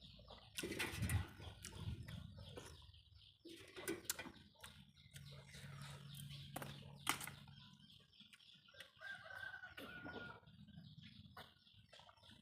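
Chickens clucking, with scattered short clicks and knocks.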